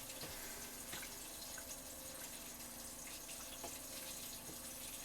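Pan of canned silkworm pupae frying, a steady sizzle with a few faint scattered pops, over a low steady hum.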